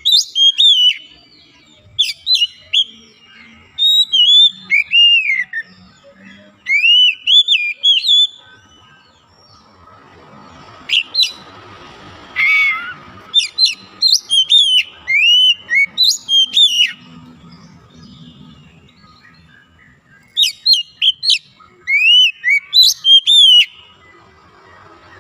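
Oriental magpie-robin (kacer) singing: bursts of loud, slurred whistled notes that rise and fall, separated by short pauses.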